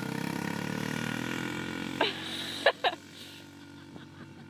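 Utility ATV engine running steadily while towing, dropping to a fainter sound about two-thirds of the way through. Three short, sharp sounds stand out around the middle, the loudest things heard.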